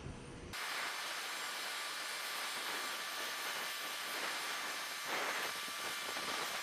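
Steady jet-turbine hiss with a faint whine in it, cutting in abruptly about half a second in and swelling briefly near the end.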